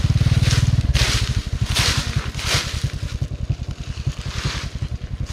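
Hands or a tool scraping and raking through soil and dry leaf litter, clearing around a termite mushroom nest, in short repeated strokes about one every second that grow weaker near the end. Underneath runs a low, fast, even throbbing that drops in rate about a second in.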